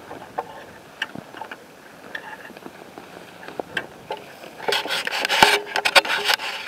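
Footsteps crunching on rocky ground through dry grass, with scattered small clicks and twig snaps. About four and a half seconds in, a loud stretch of close rubbing and scraping, dry brush or clothing dragging across the microphone.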